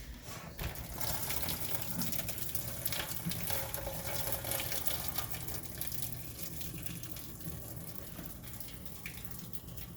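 Water pouring steadily into a kitchen sink, starting about a second in and slowly easing off.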